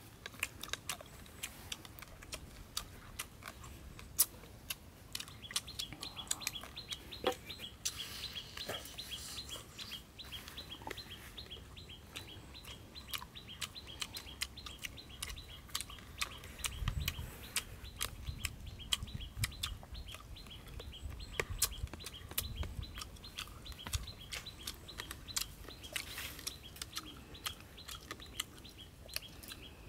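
Rapid, high chirping in long pulsing runs, over many short clicks and crackles scattered throughout.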